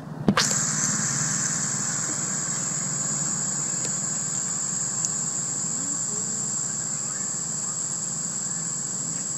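Steady high-pitched insect drone over a low steady hum, cutting in abruptly with a click about a third of a second in.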